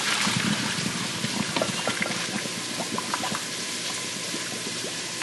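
Hot cooking water being poured off a pot of boiled broccoli, draining out in a steady stream that is strongest in the first second, with small clatters.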